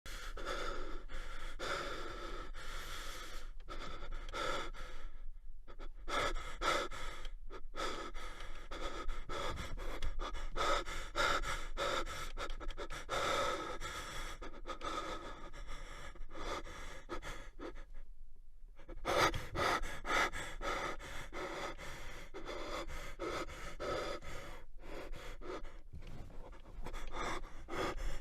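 A man breathing hard in quick, panting in-and-out breaths. The breathing stops briefly a few times, with the longest pause about two-thirds of the way through.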